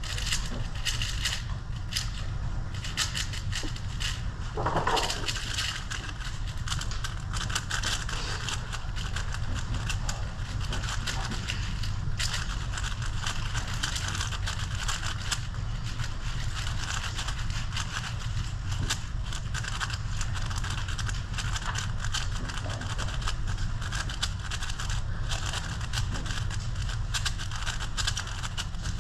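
A speedcube being turned rapidly and without pause, a dense run of small plastic clicks and rattles.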